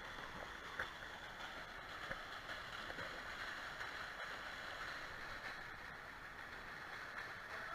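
Steady rush of water running down a water slide and churning into its splash pool.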